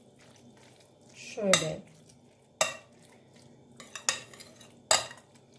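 Metal spoon stirring a wet raw minced-meat and tomato filling in a glass bowl, with about three sharp clinks of the spoon against the glass in the second half.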